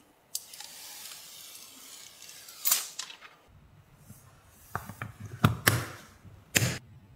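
Car floor mat being handled: a long rustling swish over the first three seconds as the mat is drawn across, then several sharp knocks and taps as it is laid down and pressed onto its fastening studs.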